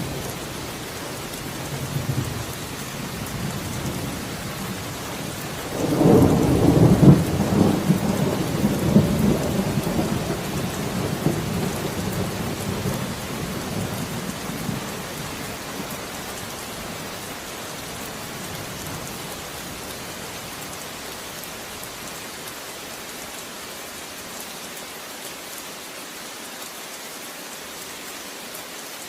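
Steady rainfall with a long roll of thunder breaking about six seconds in and rumbling away over several seconds, after which only the rain remains.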